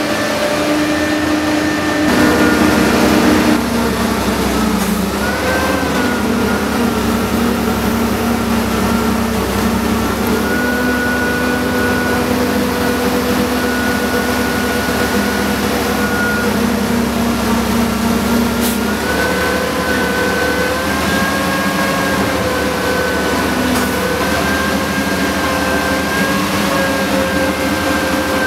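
Menck M260 dragline's engine running steadily under load as it hauls, swings and dumps the bucket, with a high thin whine over it; the pitch shifts up and down a few times as the machine works. There is a louder rushing stretch a couple of seconds in.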